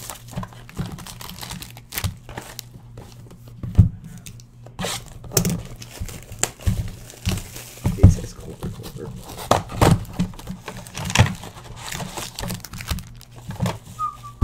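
Football trading-card packs and their box being ripped open by hand: irregular crinkling and tearing of wrappers with sharp rustles and clicks of packaging and cards, over a low steady hum. Near the end a single whistled note begins.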